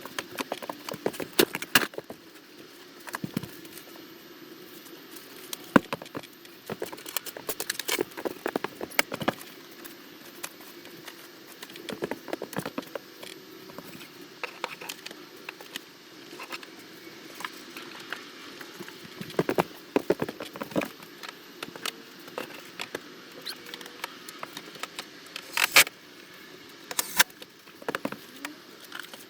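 Irregular clicks, taps and light rustling of small objects being handled, with a few sharper knocks near the end.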